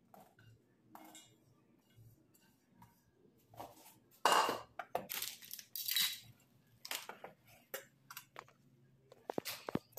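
Scattered clinks and knocks of kitchenware against a stainless steel cooking pot as chopped vegetables are tipped in and mixed, loudest about four to six seconds in.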